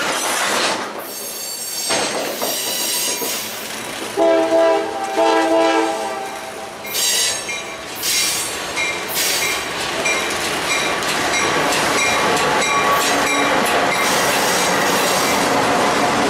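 A freight train rolls past with its wheels clattering and squealing. An approaching freight's diesel locomotive sounds a multi-tone horn in two short blasts about four seconds in. Its locomotives then run past close by with a steady loud rumble near the end.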